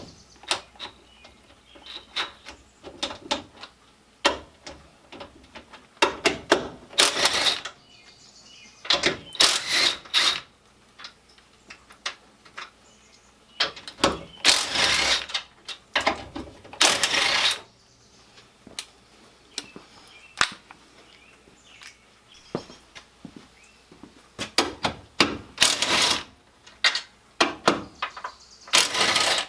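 Hand tools working on a car's front end: scattered metallic clicks and clanks, with several louder bursts of about a second each.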